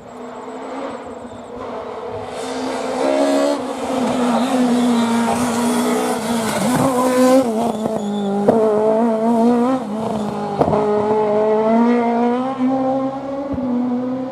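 Peugeot 306 Maxi rally car's four-cylinder engine coming closer and growing louder. Its revs then rise and fall again and again as it is driven hard on the stage, with a couple of sharp cracks partway through.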